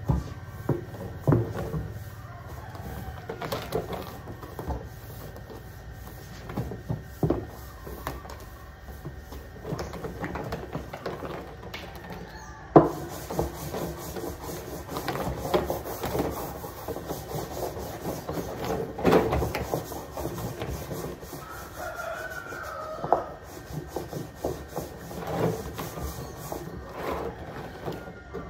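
Hand scrubbing and rubbing on the outside of a large blue plastic drum as it is cleaned: irregular scraping strokes with scattered knocks, and one sharp knock about halfway through.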